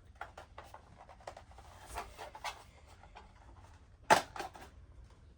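Small plastic clicks and scrapes as the mounting bracket is unclipped from a Honeywell 6150 alarm keypad, with one sharper, louder click about four seconds in.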